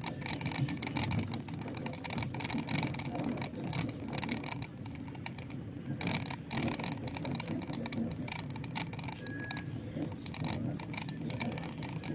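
Outdoor urban ambience: a steady low rumble of traffic, with frequent short rustling crackles over it.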